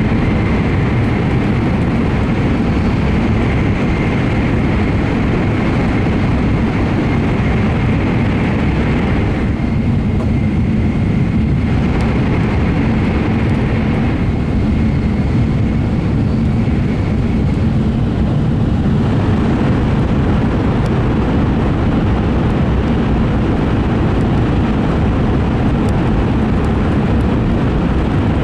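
Steady running noise heard inside an N700A Shinkansen car: a deep rumble of wheels and air that does not let up. The higher hiss above it eases twice near the middle.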